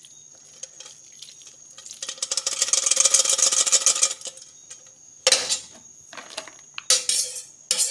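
Sauce with sliced carrot, onion and pepper scraped out of a metal pot onto fried fish, a dense rattling scrape lasting about two seconds. It is followed by three sharp clanks of metal on metal.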